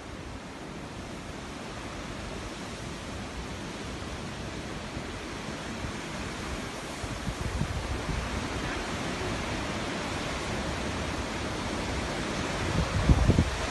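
Strong storm wind blowing, slowly growing louder, with gusts buffeting the microphone near the end.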